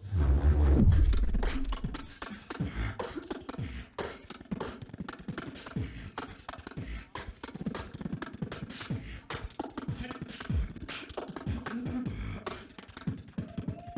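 Beatboxer performing into a handheld microphone: a loud deep bass sound sliding down in pitch in the first second or so, then a fast, dense run of mouth kicks, snares and clicks, many of the kicks dropping in pitch.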